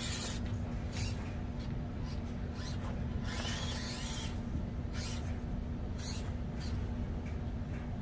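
RC rock crawler truck (Axial Deadbolt) crawling over obstacles: its motor and drivetrain whir in short bursts, about one or two a second, over a steady low hum.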